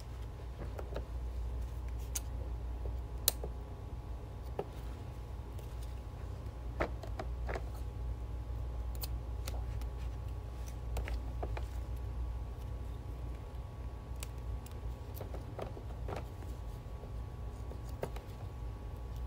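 Scissors snipping now and then amid small scattered handling clicks, over a steady low hum.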